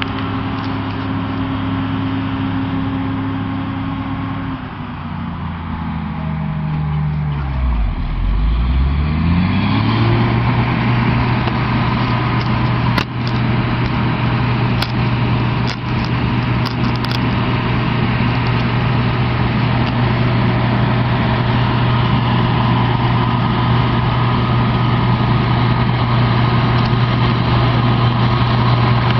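Heavy diesel farm machine engine running. Its pitch sinks over a few seconds, then climbs back up about ten seconds in and holds steady. A few sharp clicks or knocks come around the middle.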